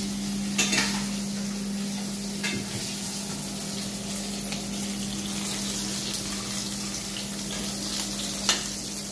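Pieces of rohu (rui) fish sizzling as they fry in oil in a stainless steel pan, with three sharp clinks of a metal spoon on the pan, about half a second in, near the middle and near the end. A steady hum runs underneath.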